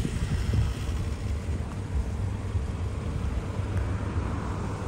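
Outdoor vehicle noise: a steady low rumble of cars around a busy gas station, swelling a little near the end.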